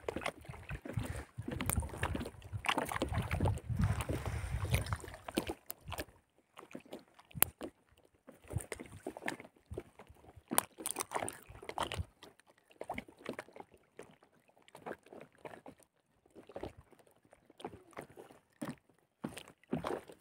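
Water sloshing and splashing around a small float boat, in short irregular splashes. Wind buffets the microphone for the first several seconds.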